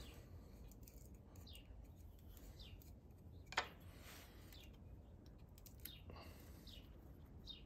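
Faint clicks as a plastic frame plug on a Harley-Davidson is unscrewed by hand, with one sharper click about three and a half seconds in. Faint short chirps, falling in pitch, recur about once a second.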